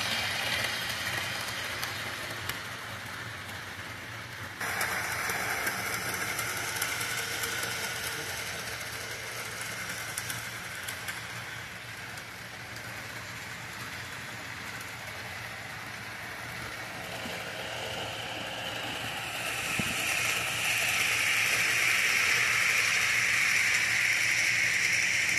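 HO scale model trains running on the layout's track: a steady whirring of small electric motors and metal wheels on rail. It grows louder towards the end as a train comes close.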